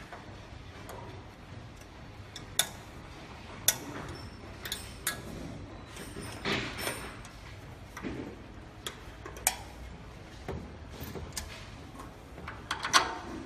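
Irregular sharp clicks and light knocks from a glass laser tube and its tube holders being handled and seated in the machine, with a quick cluster of clicks near the end.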